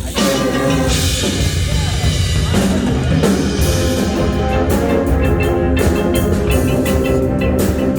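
High school marching band playing: brass and wind chords are held over drums, with cymbal crashes at the start and again about a second in. Percussion hits come thick and fast from about halfway.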